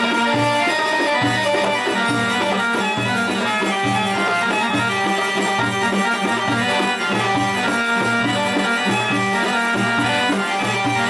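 Traditional Middle Eastern music for a tanoura spinning-skirt dance: a melody line over a steady drumbeat of about two beats a second.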